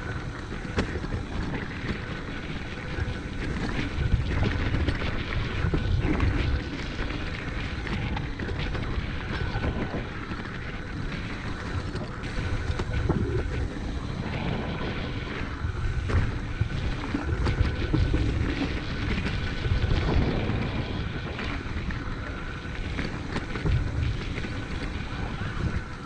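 Mountain bike riding fast down a dirt singletrack: tyres rolling over dirt and leaves, with the clatter of the bike over bumps. Wind buffets the microphone in repeated low surges.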